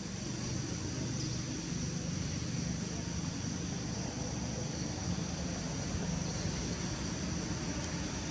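Steady outdoor background: a thin, continuous high insect drone over a low, even rumble.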